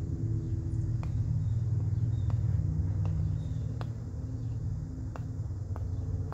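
Steady low rumble, with about seven sharp clicks of a putter tapping and striking golf balls on artificial turf, spaced a second or so apart.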